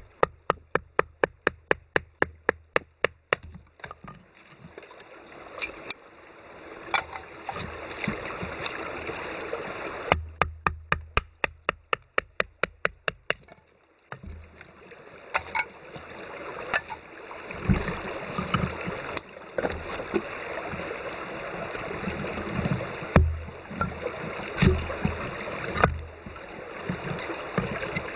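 Wood fire crackling and hissing with scattered sharp pops. Twice, a run of rapid, evenly spaced clicks of about three seconds each, roughly six a second, cuts in over it.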